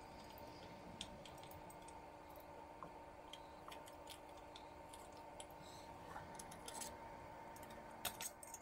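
Faint, scattered clicks and light taps of small parts being fitted by hand into a diode laser module's metal housing, with two louder clicks near the end, over a faint steady hum.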